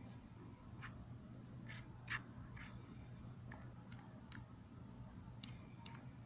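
Light, irregular clicks and taps of a utility-knife blade against the cut-open plastic correction pen and the hard table, the sharpest about two seconds in, over a steady low hum.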